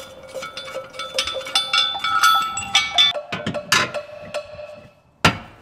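Light metallic clinks and taps, some ringing briefly: a steel hitch receiver and its bolts being handled and fitted.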